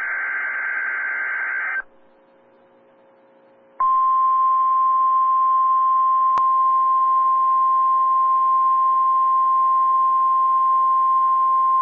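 NOAA Weather Radio test: the last burst of the SAME digital header, a buzzy data warble, ends about two seconds in. After a short near-silent gap, the steady single-pitch 1050 Hz warning alarm tone starts about four seconds in and holds.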